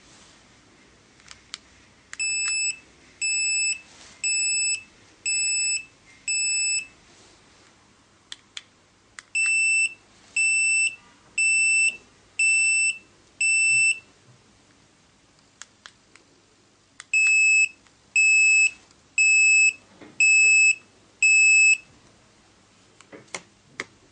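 Electronic beeper of a wireless remote-control receiver sounding three runs of five high-pitched beeps, about one a second, with a few sharp clicks before each run.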